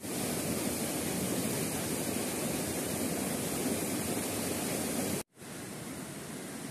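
Mountain stream rushing over mossy boulders in small cascades, a steady rush of water. About five seconds in it cuts off abruptly and then picks up again quieter, the stream farther away.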